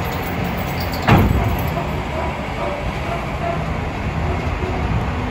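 Heavy diesel truck hauling an excavator on a flatbed trailer, driving slowly up a steel ferry loading ramp with a steady low engine rumble. There is one loud bang about a second in.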